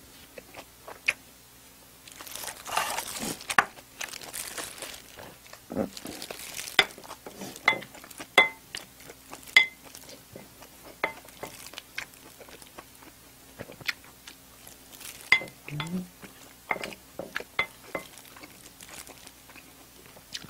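A couple of seconds of paper crinkling from a napkin being handled, then a wooden spoon scraping and clicking against a ceramic plate as jjajang rice is mixed and scooped. Many separate sharp utensil clinks, some with a short ring, and a brief hum of a voice about 16 seconds in.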